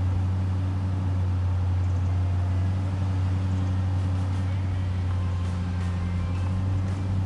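Steady engine and road noise of a moving vehicle heard from inside the cabin: an even, low drone.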